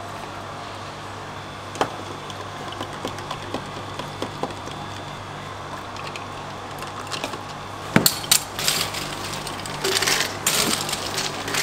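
A metal scoop digging into a bin of ice cubes and ice clattering into a plastic bottle: a dense run of clinks and crunches starting about two-thirds of the way through. Before that, light knocks and clicks of plastic jugs being handled, over a steady low hum.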